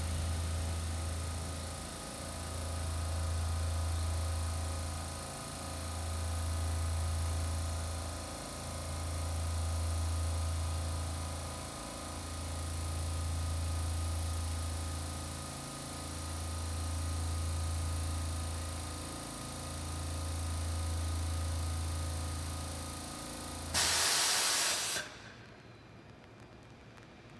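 Stationary EF510 electric locomotive humming as it stands, with a steady low hum that swells and fades about every three and a half seconds under a set of steady higher tones and hiss. Near the end comes a short loud burst of hiss lasting about a second, then the sound drops away abruptly.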